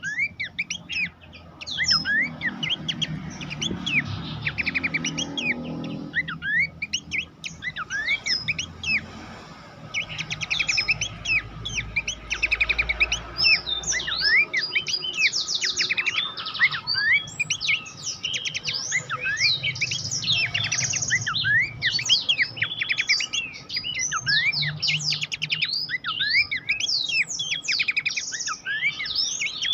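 Pelanduk semak babbler singing in a fast, dense stream of overlapping chirps, short trills and quick whistled glides. The song grows busier and louder from about ten seconds in.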